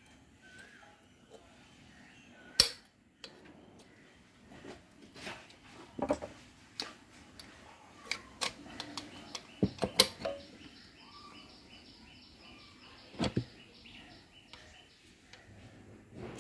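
Workshop handling sounds from a brake master cylinder repair on an auto-rickshaw: scattered sharp metallic clicks and knocks of tools and parts, the loudest about two and a half seconds in and about ten seconds in. From about ten seconds in there is a run of fast, even, high ticking.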